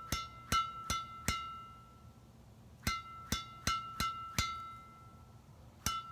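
Strings of a freshly strung badminton racket (Jnice JS-66 string at 27 x 29 lbs tension) struck repeatedly for a sound check. Each strike gives a sharp, high-pitched ping with a short ring, in quick runs of four or five with short pauses between.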